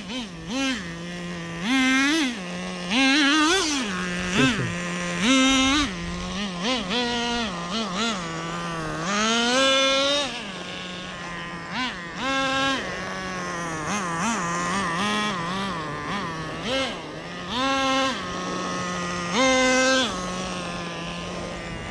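Traxxas Nitro Rustler's two-stroke nitro glow engine buzzing at a low steady speed and revved up in short bursts again and again, about every one to three seconds, as the RC truck is driven during break-in after its carburettor has been tuned.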